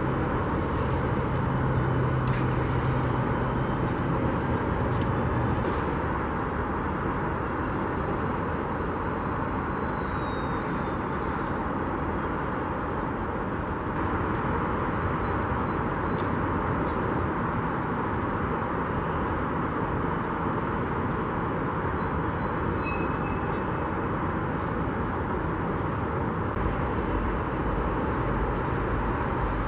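Steady rail-yard rumble of diesel locomotives running, with a low steady hum that fades out about five seconds in.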